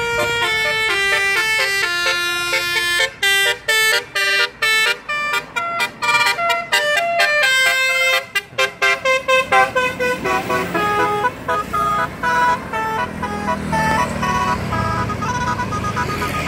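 Bus 'telolet' horn, a multi-tone musical air horn, playing quick tunes of stepped notes: held notes at first, then a long run of short staccato toots, then softer notes over a low rumble near the end.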